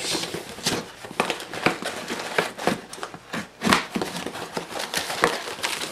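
Cardboard shipping box being cut open by hand and its flaps pulled back: irregular crackling, rustling and sharp clicks of packing tape and cardboard.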